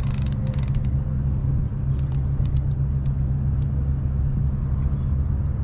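Steady low machinery rumble, like a running engine, with a cluster of faint clicks at the start and a few single clicks about two to three and a half seconds in.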